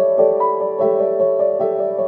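Instrumental background music, with notes struck at an even pace of a little over two a second.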